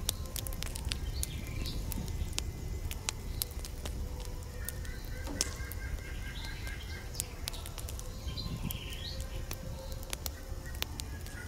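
Birds calling: a rapid run of repeated notes, about five a second, from about four and a half to seven seconds in, and short rising chirps here and there. Many sharp clicks and a low rumble run underneath.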